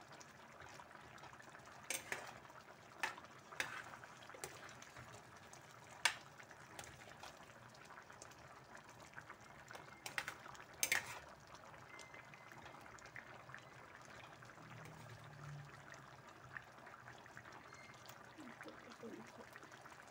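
Coconut-milk stew bubbling at a simmer in a stainless steel pot, with a metal ladle stirring through it and knocking sharply against the pot several times in the first half.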